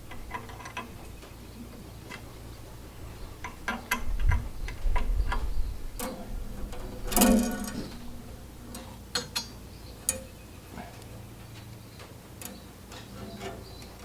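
Irregular small clicks and clinks of hand tools and metal fittings being handled while fitting an inline fuel filter to a tractor carburetor, with a louder clatter about seven seconds in.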